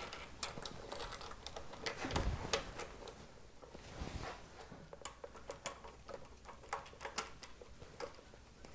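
Light scattered clicks and taps of small metal handlebar-mounting washers and bushings being handled and fitted into their mounting hole, with a couple of soft knocks about two and four seconds in.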